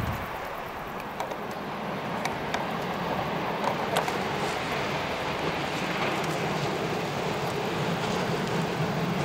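Romanian CFR electric locomotive hauling passenger coaches on its approach, a steady rumble growing gradually louder as it nears. A few light clicks are heard between about two and four seconds in.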